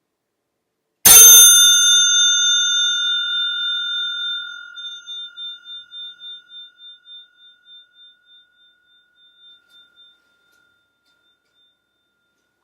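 Crane Suzu brass bicycle bell struck once by its hammer about a second in, ringing loud and clear with a long, slowly fading tone that pulses as it dies away over about nine seconds.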